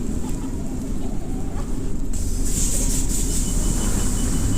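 Strong wind buffeting the microphone in a snowstorm, a steady heavy rumble, with a brighter hiss coming in about two seconds in.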